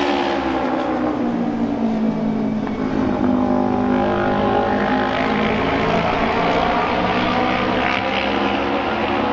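Japanese auto-race motorcycle's 600cc two-cylinder engine running hard as it laps the oval. The engine's pitch falls over the first couple of seconds, then climbs again later.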